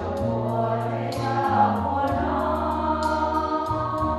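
Women's choir singing a gospel hymn in several parts over accompaniment with steady deep bass notes and a light, regular ticking beat.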